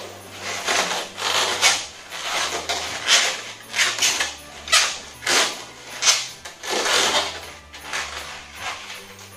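Two long latex modelling balloons rubbing against each other as they are twisted together into a spiral, in repeated strokes a little more than once a second.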